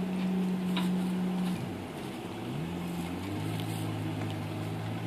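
Dodge Durango R/T's 5.7-litre Hemi V8 running under load while towing a boat trailer up a steep ramp. The steady engine note dips about a second and a half in, then climbs again and settles.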